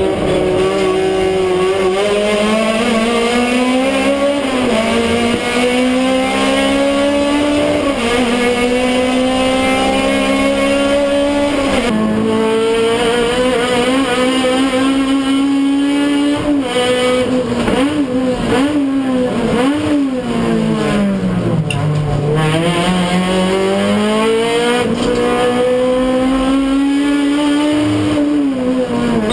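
Touring race car's engine heard from inside the cockpit, pulling hard: the pitch climbs through each gear and drops back at every upshift. Later it rises and falls quickly several times, sinks low for a slow corner, and then climbs again under full throttle.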